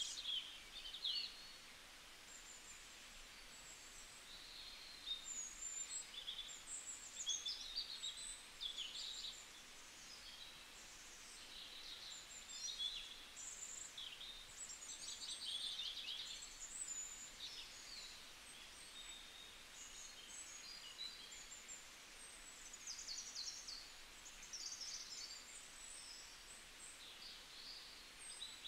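Birds chirping and trilling: many short, high calls overlapping over a faint hiss.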